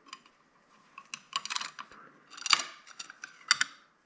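A series of sharp clicks and ticks, a few louder ones about a second and a half, two and a half and three and a half seconds in, from hand work on a small music-wire coil spring as its excess coils are being taken off.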